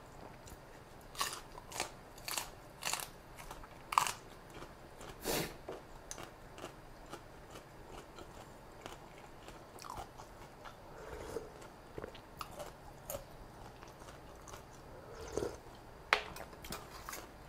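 Close-up crunching and chewing of a mouthful of fresh raw vegetable leaves: about six crisp bites in the first five seconds, softer wet chewing through the middle, and another run of sharp crunches near the end.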